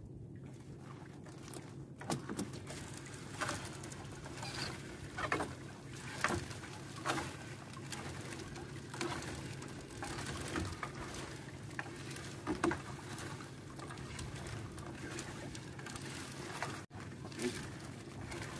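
A fishing net being hauled into a small boat: scattered light knocks and splashes, roughly one a second, over a steady low hum.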